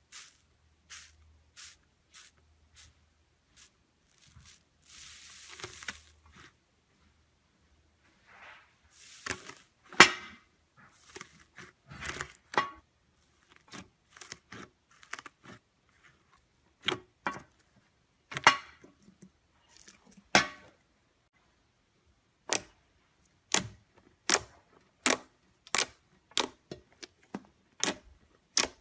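Slime being played with by hand: a string of irregular sharp pops and clicks, with two longer crackling stretches and a loud snap about ten seconds in.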